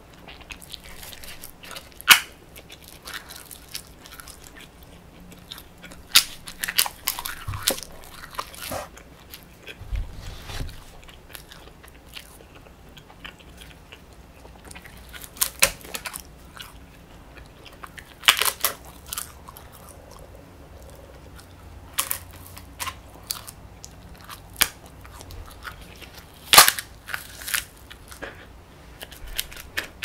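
Close-up biting and chewing of thin, crisp sheets of edible coloured paper: sharp crackling snaps as each bite breaks off, every few seconds, with softer crunching between while the pieces are chewed.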